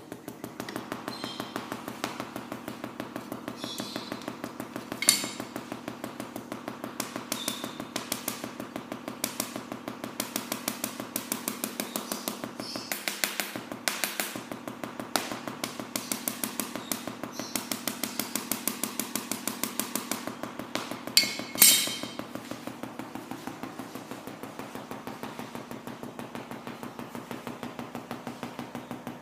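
Mini solid-state Tesla coil fed from half-wave rectified 230 V mains, its spark discharge buzzing steadily while an arc is drawn from the coil to a metal rod. There are louder sharp cracks about five seconds in and again around twenty-one seconds.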